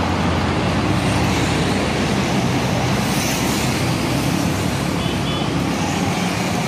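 Steady roadside traffic noise, with motorcycles passing on the road.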